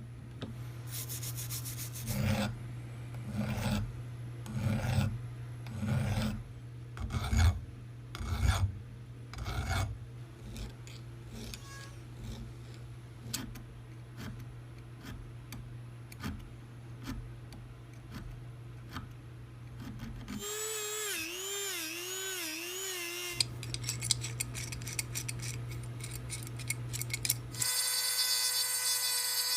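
Hand file rasping over the rusty bicycle wrench handle to take out imperfections, in heavy strokes about one a second at first, then lighter, quicker strokes.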